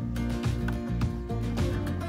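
Background music: sustained notes over a regular beat.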